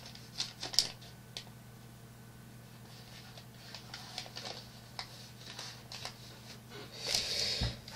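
Faint scattered clicks and ticks of a small metal jaw harp being handled while its reed gap is checked, over a steady low hum. A short hiss comes near the end.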